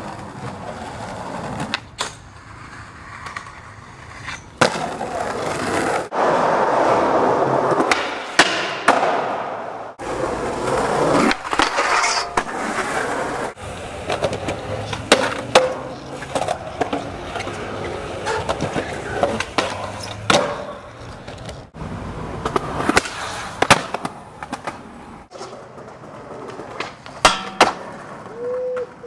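Skateboard wheels rolling on concrete, broken by sharp clacks of the board popping and landing. The sound changes abruptly several times where one clip cuts to the next.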